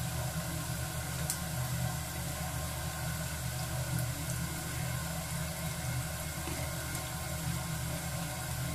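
Breaded beef pieces deep-frying in hot oil: a steady sizzle and bubbling over a steady low hum, with a couple of faint clicks as a spatula touches the pan.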